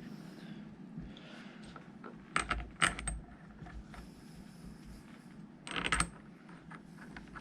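Metal parts and tools clinking and rattling against each other in two short bursts, a little over two seconds in and again about six seconds in, as the hydraulic pump and its bolts are handled on the tractor.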